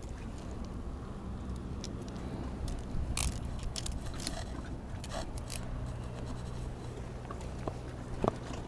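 Scattered soft scrapes and clicks of close handling, the fishing rod and a caught spiny lobster being held and moved, over a steady low rumble.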